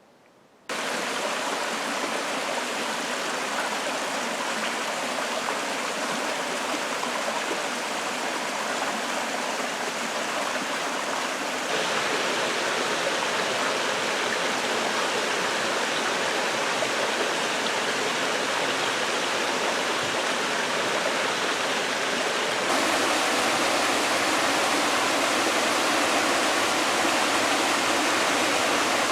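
Waterfall rushing with a steady, even roar. It starts abruptly about a second in and grows louder in two steps, near the middle and again near the end.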